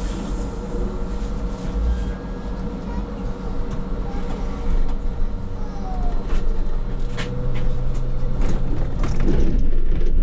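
Škoda 27Tr electric trolleybus driving, heard from on board: a steady low rumble with a thin steady hum and frequent short knocks and rattles. The sound grows slightly louder towards the end.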